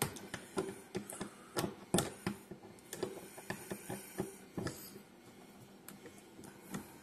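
Irregular light clicks and knocks, roughly one or two a second, from small hard objects being handled.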